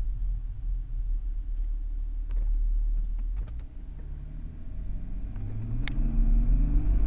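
BMW E39 2.5-litre straight-six turbodiesel running with a low rumble, then accelerating from about four seconds in, its pitch rising steadily. A sharp click comes near the end. The uploader diagnoses low turbo boost pressure and a faulty MAF sensor on this engine.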